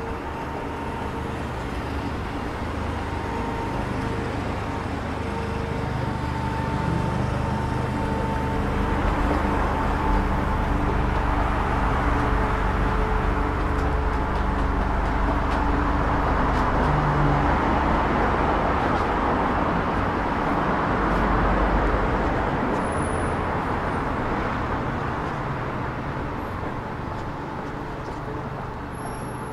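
Road traffic: motor-vehicle engine hum and tyre noise build up, stay loudest through the middle, then fade away.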